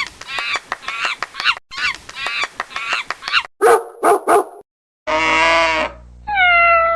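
A string of cartoon sound effects: two runs of quick chirpy squeaks, then three short bark-like yelps, a held horn-like honk, and a tone that slides down at the end.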